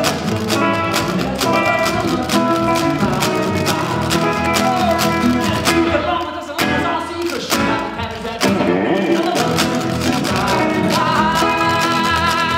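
Skiffle band playing live: electric and acoustic guitars, upright double bass and a washboard keeping a steady, fast beat, with a sung lead vocal. The playing thins out briefly about halfway through before the full band comes back in.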